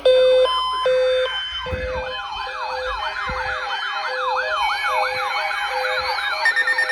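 Electronic siren alert sound that starts suddenly: a few alternating high and low steady tones, then a fast up-and-down yelping sweep about three times a second over a steady beep about twice a second.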